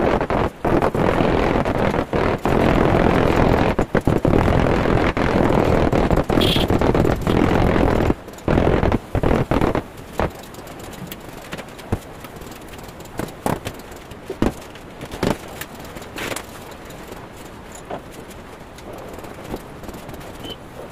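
Tile-laying work on a cement-mortar floor: loud, continuous scraping and rubbing for about the first ten seconds, then scattered knocks and taps of tools on tile, with a brief metallic clink.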